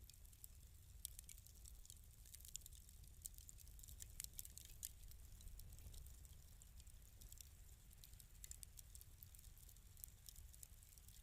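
Fireplace fire crackling: faint, irregular pops and snaps over a low, steady rumble.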